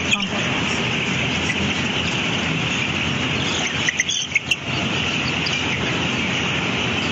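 A large flock of broiler chickens chirping together in a steady, dense, high-pitched chorus, with a few sharp clicks about four seconds in.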